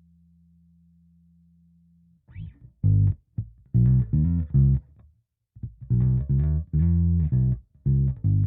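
Electric bass, a Squier Precision Bass with a DiMarzio Model P pickup, played through a Hiwatt Bulldog 440 bass amplifier. A faint held low tone is followed about two seconds in by a line of short, separately plucked notes, with a brief pause about halfway before the notes resume.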